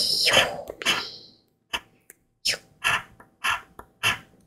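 Scratch-off coating being rubbed off an instant lottery ticket: a longer scratching rasp, then five short scratching strokes about half a second apart.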